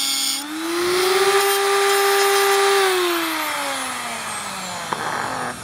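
Electric angle grinder's cutoff wheel cutting through a stock Ford ball joint. About half a second in, the motor's whine dips, then rises to a higher pitch as the wheel runs free and holds there. From about three seconds it falls steadily as the grinder spins down.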